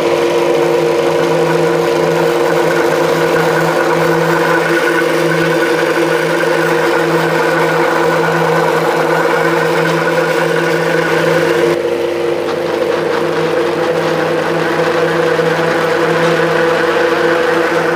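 210-type flat-die feed pellet mill, driven by a three-phase 7.5 kW electric motor, running steadily under load with a constant hum as it presses straw-and-corn mash into pellets. About twelve seconds in the sound thins and eases a little as the last of the feed passes through the die.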